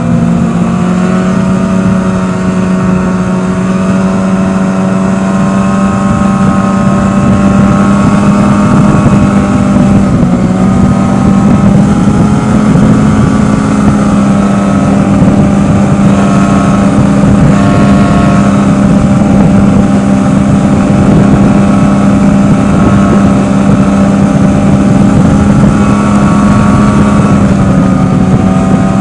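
Snowmobile engine running steadily at cruising speed, loud, its pitch dipping and rising slightly now and then.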